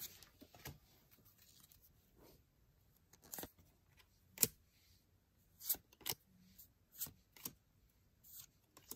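Pokémon trading cards being flipped and slid off a stack in the hands, one at a time: a string of short, faint swishes and snaps at irregular intervals.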